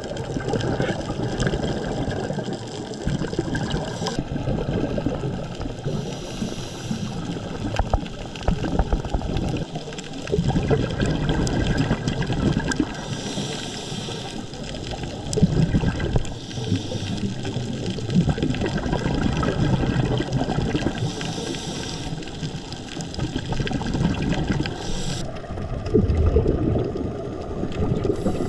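Scuba diver's regulator breathing heard underwater: a hiss on each inhalation recurring every few seconds, and bursts of bubbling rumble from exhaled air, over a steady water rush.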